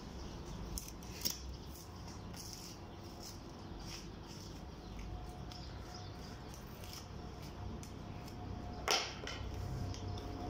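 Butcher's knife cutting meat away from the ribs of a hanging camel shoulder: faint, repeated slicing and scraping strokes over a low steady hum, with one louder stroke about nine seconds in.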